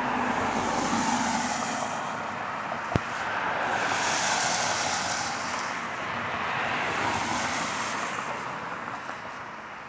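Street traffic passing, the noise of tyres and engines on the road swelling and fading as vehicles go by, with a single sharp click about three seconds in.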